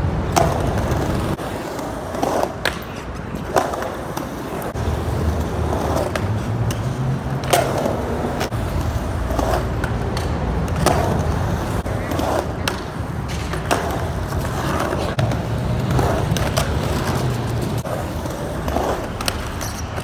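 Skateboard on a concrete skate park ramp: the wheels roll with a steady low rumble, broken by many sharp clacks as the board pops, hits the ramp lip and lands. The rumble drops away for a few seconds near the start, then comes back.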